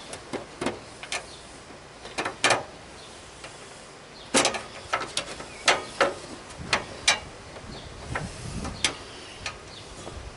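A string of irregular sharp clicks and knocks from hands working on mower hood parts, the loudest knocks about halfway through, with a short soft rattle near the end.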